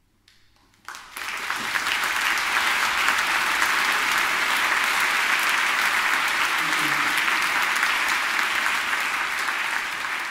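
Audience applauding at the end of a song. The clapping breaks in about a second in after a brief silence, then holds steady and loud.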